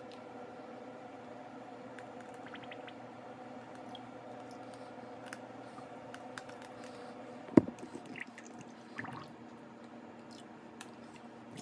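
Liquid hair dye squeezed from a plastic squeeze bottle into a big aluminium pot of water, with soft squishing and dripping over a steady hum. One sharp knock comes about seven and a half seconds in.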